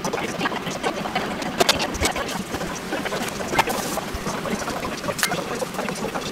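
Kitchen work sounds: a steady background noise with scattered sharp clicks and knocks of utensils, containers and a tray being handled.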